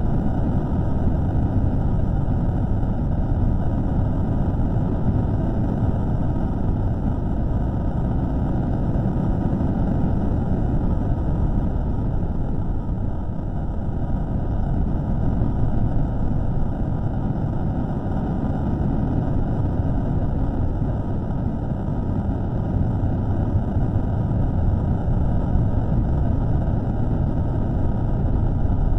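Steady low rumbling noise with no distinct events, from a microphone recording slowed down about threefold and presented as a mysterious signal.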